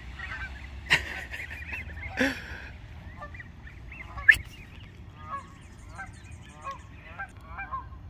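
A flock of geese honking over and over, stirred up by a dog chasing them. A few sharp louder sounds stand out, the loudest about four seconds in.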